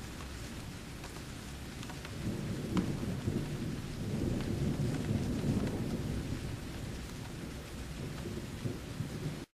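Steady rain with low rolling thunder that swells in the middle, then cuts off abruptly just before the end.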